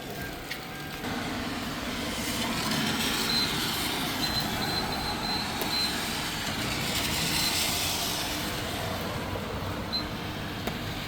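Car moving slowly on wet pavement in the rain: a hiss of tyres and rain that swells and fades, with a faint high squeal coming and going a few seconds in.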